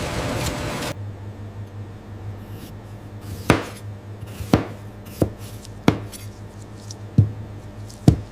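A rushing noise cuts off about a second in, leaving a steady low hum. Six sharp knocks then come at uneven intervals over the hum.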